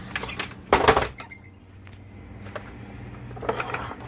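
Hard parts of a pool cleaner being handled and set down on a work surface: a loud clatter about a second in, light ticks before it, and a shorter rattle of knocks near the end.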